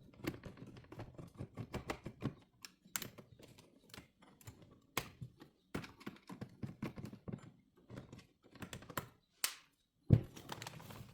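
Scattered small clicks and taps of hands working on plastic dashboard parts and clips around a car head unit, with one sharp louder click about ten seconds in.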